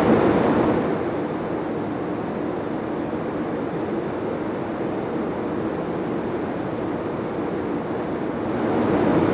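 Rotax engine and propeller of a Zenith STOL CH 701 running steadily in flight, heard from a camera mounted outside the cabin, mixed with rushing wind on the microphone. It is a little louder in the first second and swells slightly near the end.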